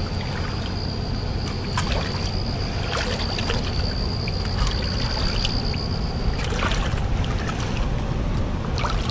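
Wading through a shallow river: water sloshing and splashing around the legs at each step, over the steady rush of flowing water. A thin, steady high whine runs through most of it and stops about six seconds in.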